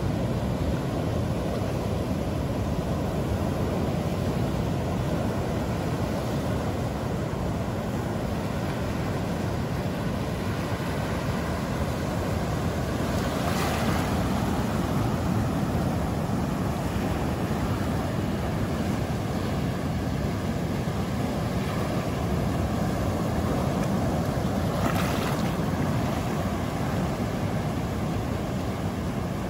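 Ocean surf on a beach: a steady rushing wash with a low rumble, and two brief louder hisses, about halfway through and near the end.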